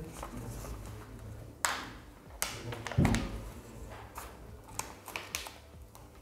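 A plastic protective film being peeled and unwrapped from a new smartphone: crinkling and rustling with scattered clicks and taps of handling. There is one louder thump about three seconds in.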